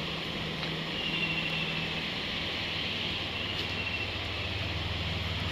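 Steady low mechanical hum under an even rushing background noise.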